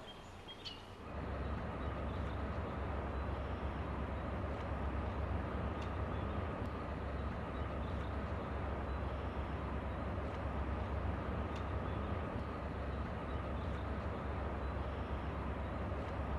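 Steady low rumble of wind buffeting the camcorder's microphone, setting in abruptly about a second in.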